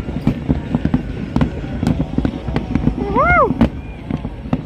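Fireworks display: a dense, rapid run of bangs and crackles, many reports a second, with a brief rising-and-falling tone about three seconds in.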